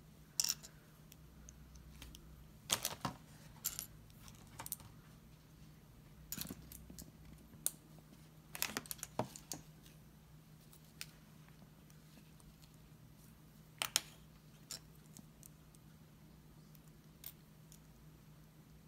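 Plastic LEGO bricks clicking and clattering as they are picked through on a hard tabletop and pressed together by hand: scattered sharp clicks, several in quick clusters, with long quiet gaps between.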